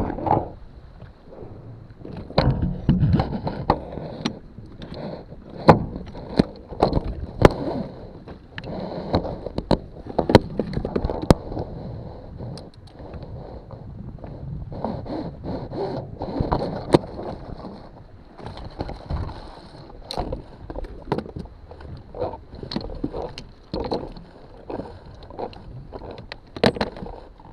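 Irregular knocks, bumps and scrapes of handling aboard a kayak, coming at uneven intervals.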